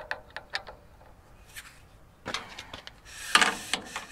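Metal fittings on a sawmill head being handled: a few light clicks and knocks, then a rubbing scrape about three seconds in.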